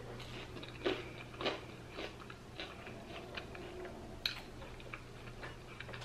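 A person chewing a mouthful of toasted sourdough bread with tuna salad and tomato, with a couple of sharp crunches about a second in and softer chewing after, over a low steady hum.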